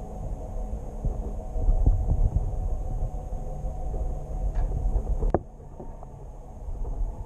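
Muffled underwater noise picked up by a GoPro in its waterproof housing: a low throbbing rumble with small knocks. About five seconds in there is a sharp click, after which the faint hiss above drops away.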